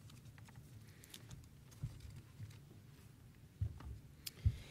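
Quiet room tone with a few soft low thumps, the loudest near the end, and some faint clicks.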